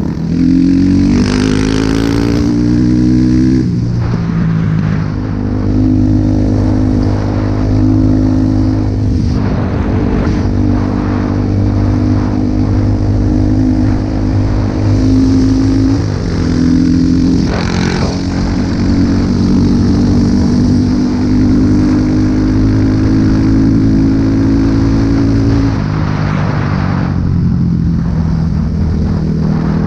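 Enduro dirt bike engine accelerating hard, its pitch rising over the first few seconds, then held at high revs at speed, with wind rushing over the microphone. The revs dip briefly about halfway through and fall again a few seconds before the end.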